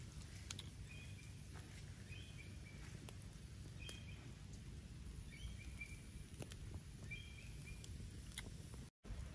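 Small open wood fire crackling with scattered sharp pops, while a bird gives short chirping calls about every second or two, over a low steady rumble.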